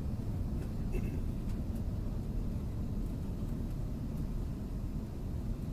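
Airbus A330 in flight on approach, heard inside the passenger cabin: a steady, deep rumble of engine and airflow noise.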